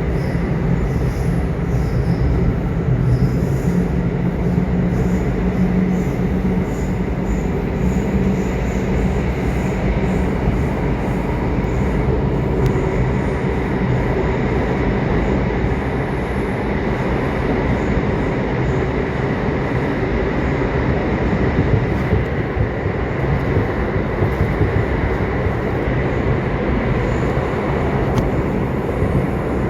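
Subway train running: a steady rumble of wheels and running gear, with a lower hum that is stronger for the first ten seconds or so and a faint steady high tone over it.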